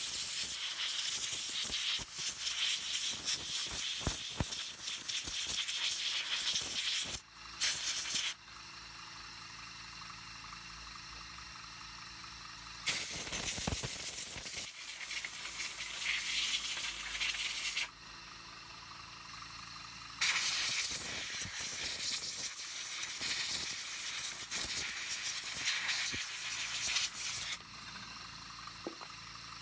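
Compressed-air blow gun blasting air through a small black plastic engine part to clean it out. The hiss comes in long blasts of several seconds each, with a short one about seven and a half seconds in and quieter pauses between.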